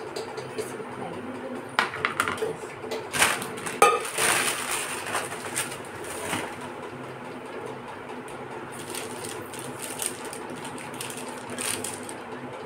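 Steady hum of a room fan, with a few knocks and clatters of kitchen utensils being handled and set down, mostly between about two and five seconds in and once more near the end.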